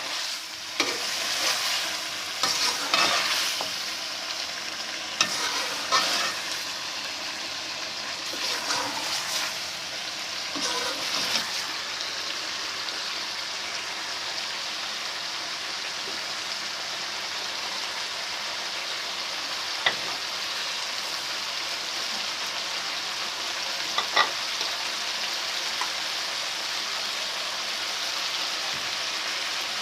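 Chicken with onion, garlic and ginger frying and sizzling in oil while a spoon stirs it. Scrapes and knocks of the spoon against the pan come through the first dozen seconds, then the steady sizzle continues with a couple of single clicks.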